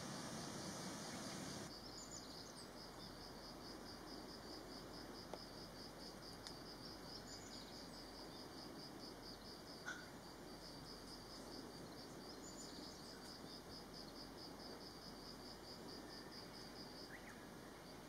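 Faint ambience of an insect chirping in a steady pulsing trill, starting about two seconds in, with a few short bird chirps.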